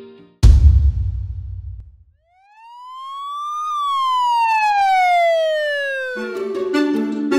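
A sudden deep boom, then one long fire engine siren wail that rises for about a second and falls slowly. Music comes back in near the end.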